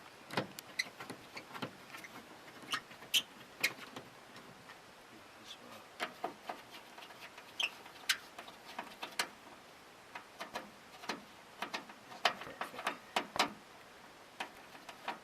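Scattered, irregular clicks and knocks of tools and parts being handled while a rooftop RV air conditioner is taken apart.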